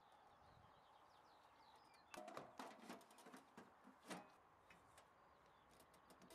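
Faint clicks and knocks of handling at an outdoor electrical cable cabinet as the fuses are fitted and its cover is closed, the loudest knock about four seconds in. Faint bird chirps in the first second.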